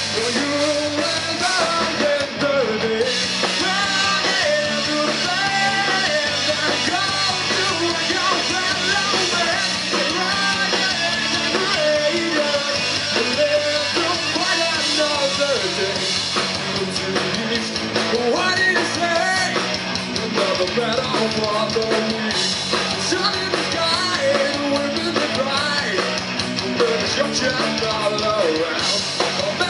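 Rock band playing live: electric guitars and drum kit with a singer, a steady loud full-band sound with no breaks.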